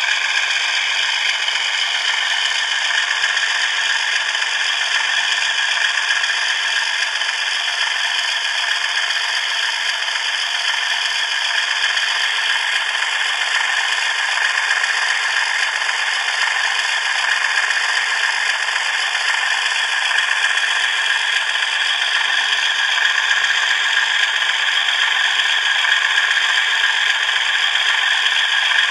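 Model railway train running on the layout: the small electric motor and wheels on the rails make a steady whirring rattle.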